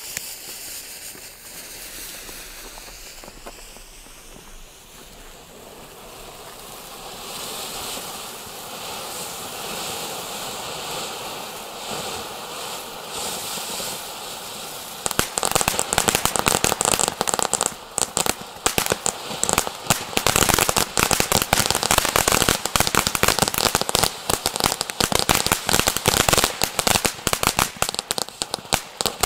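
Two Weco Fire Fantasy "Domino" ground fountains burning side by side: a steady hiss of spraying sparks, then from about halfway a much louder, dense crackling of many small sharp pops.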